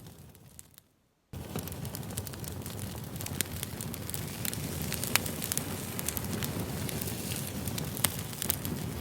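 Campfire crackling, a steady low rumble of flames with many sharp pops. It fades out to a brief silence about a second in, then starts again abruptly.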